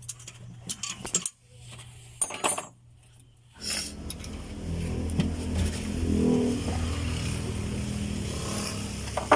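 Metal tools clink and knock on the engine, then about three and a half seconds in a small engine, the multicab's Suzuki F6A, starts up and keeps running steadily.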